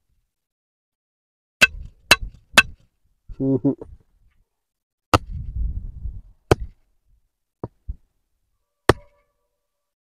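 Sprouted coconut being struck hard to crack its shell, giving sharp separate knocks: three in quick succession, then several single ones, each a second or more apart.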